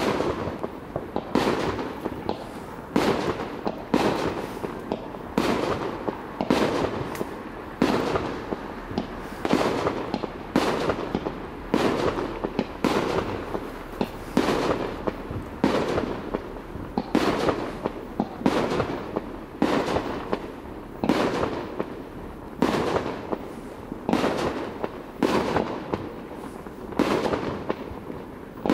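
Aerial fireworks shells bursting in quick succession, about one bang a second, each trailing off in a rolling echo.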